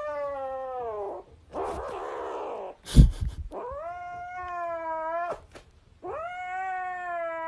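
A grey kitten yowls in a string of long, drawn-out cries, each more than a second long and rising at the start before levelling off; one of them is rougher and breathier. They are the warning yowls of a kitten guarding a toy it is holding. About three seconds in, a single sharp thump is the loudest sound.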